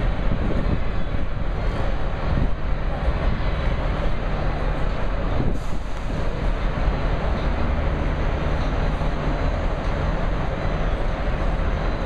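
A steady low rumble with an even hiss over it.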